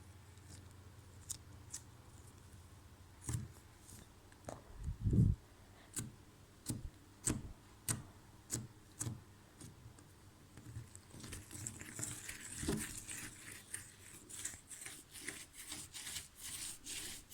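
Slime being worked by hand, making separate sharp clicks and pops that turn into a fast run of crackling clicks about two-thirds of the way in.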